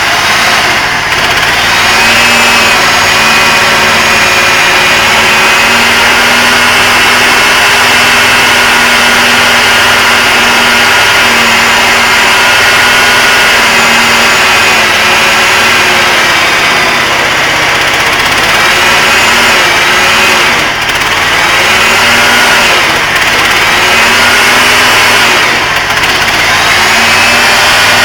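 Homemade mini excavator's engine running steadily. Its pitch and loudness dip briefly several times, as when the machine takes load.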